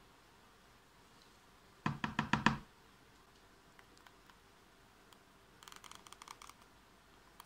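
Brass plaque handled in a small plastic tub of ferric chloride etchant: a quick cluster of about six sharp knocks around two seconds in. Near the end comes a run of faint, rapid ticking, as a wooden skewer works over the plaque's surface.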